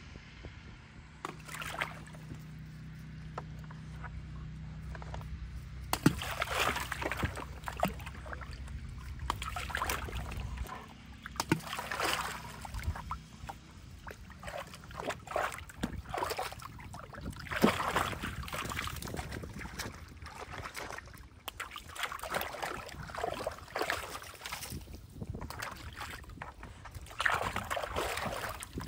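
A puppy wading in a water-filled stock tank, sloshing and splashing irregularly as it dunks its head after floating tennis balls. A low steady hum sits underneath for roughly the first ten seconds.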